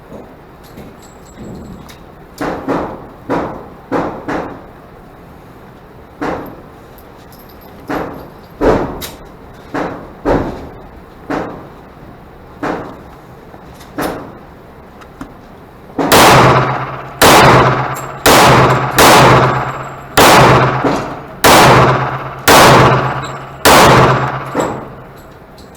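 Glock 44 .22 LR pistol firing. Irregularly spaced, quieter shots come first, then a fast string of about nine loud shots in the last ten seconds, each with a ringing tail.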